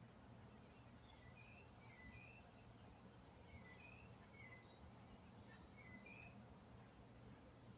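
Faint outdoor background: a steady, high-pitched insect trill, with a few short bird chirps scattered through it.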